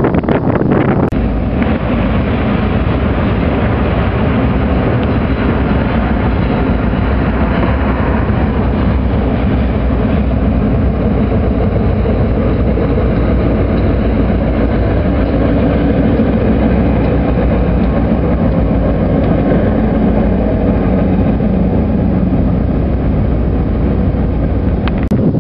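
Diesel-hauled local freight train passing close by: the locomotive's engine and the rolling hoppers and tank cars make a steady, loud rumble.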